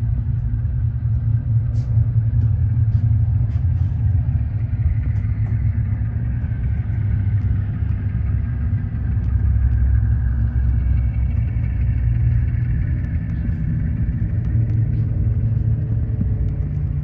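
HO-scale model diesel locomotive's sound decoder playing a diesel engine running sound, heard under a steady low rumble of background noise, with a few light clicks.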